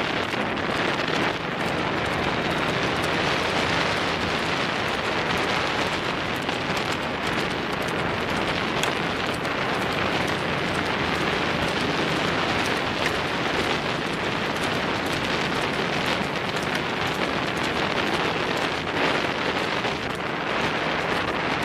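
Steady rushing road noise of a buffalo cart on the move: wheels rolling on asphalt and wind on the microphone, an even hiss throughout.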